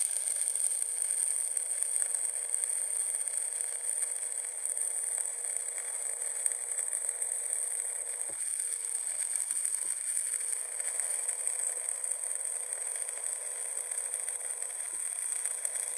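Stick-welding arc burning steadily on a 3/32-inch 6013 electrode, a continuous crackling hiss as the rod is dragged along to deposit a horizontal bead.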